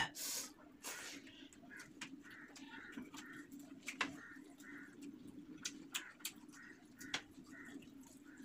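Close-up hand-eating sounds: fingers squeezing and mixing cooked rice on a banana leaf, with wet chewing and lip-smacking. These come as short sharp clicks, the strongest near the start, about a second in and about four seconds in, over a steady low hum.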